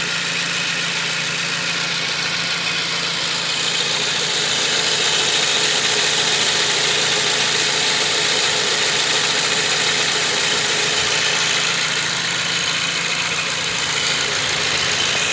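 Fiat Strada engine idling steadily.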